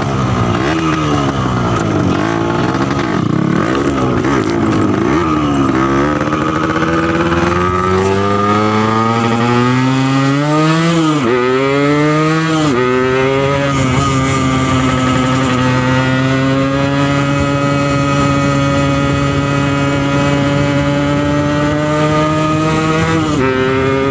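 Yamaha RX-King's two-stroke single-cylinder engine, on its first run after a from-scratch restoration, being revved. There are a string of short throttle blips at first, then the revs climb, fall back twice about eleven and twelve seconds in, and are held steady at a raised speed until they drop shortly before the end.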